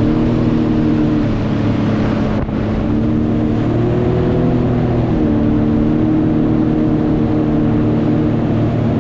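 Jet ski engine running steadily under way, its pitch rising a little about three seconds in and settling back about five seconds in as the throttle changes, over a low rumble of water and wind.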